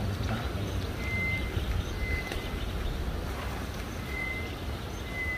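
Low rumbling noise, like wind on the microphone, with a short, high, single-pitched note sounding roughly once a second.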